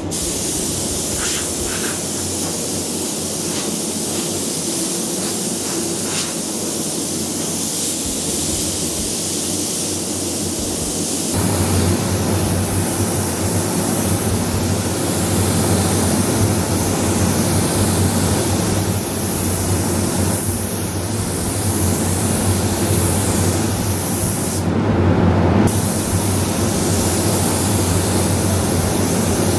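Paint spray gun hissing steadily as it lays down clear coat, getting louder about eleven seconds in and breaking off for about a second near the end, over a steady low hum.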